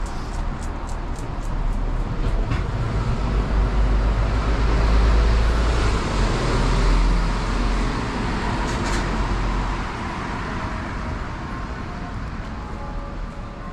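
A city bus passing close by on the road, its engine and tyre noise swelling to a peak about five seconds in and fading away by about ten seconds.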